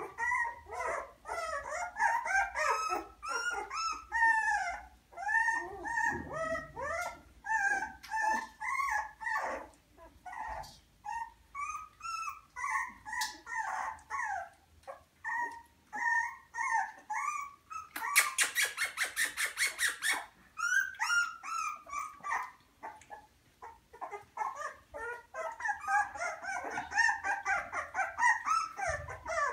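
Litter of 24-day-old beagle puppies whining and yelping almost continuously, many short high calls overlapping. A fast run of clicks lasts about two seconds past the middle.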